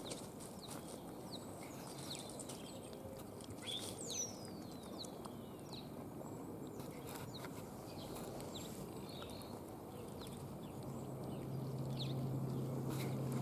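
Red foxes eating meat, faint scattered clicks and crunching over a low hiss. A short whistle-like chirp falls in pitch about four seconds in, and a low steady hum comes in near the end.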